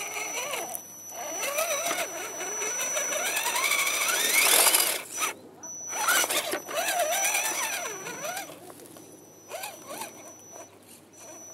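Electric motor and gear drivetrain of a radio-controlled scale rock crawler whining under throttle as it climbs over tree roots, the pitch wavering up and down and sweeping sharply higher about four seconds in. A steady high-pitched whine cuts in and out with the throttle from about five seconds on.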